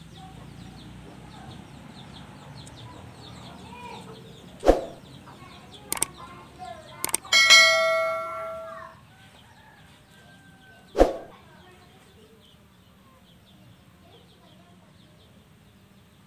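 Subscribe-button sound effect: three sharp mouse clicks, then a bright bell ding that rings for about a second and a half and fades, and one more click a few seconds later, over faint background noise.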